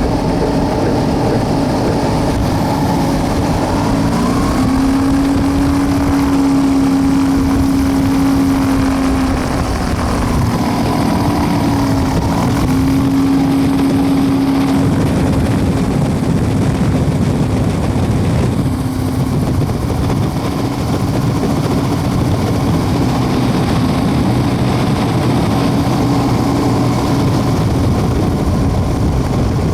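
WAR Corsair's light-aircraft piston engine and propeller running at low power while taxiing. It is a steady hum whose pitch rises about four seconds in, dips briefly around twelve seconds, and eases off a little after nineteen seconds.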